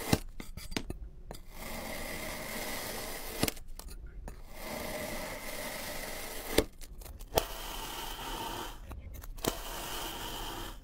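A knife blade slicing down through a block of kinetic sand: a steady, soft, gritty scraping, broken by short dead gaps and by a handful of sharp clicks, the loudest a little past the middle.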